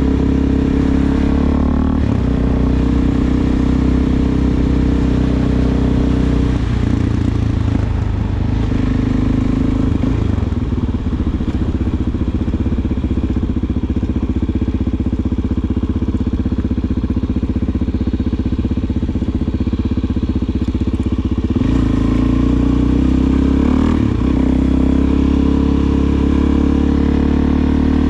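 Suzuki DR-Z400SM's single-cylinder four-stroke engine running through an aftermarket Delkevic exhaust while riding. The engine note shifts with throttle changes about a quarter of the way in and again about three quarters through.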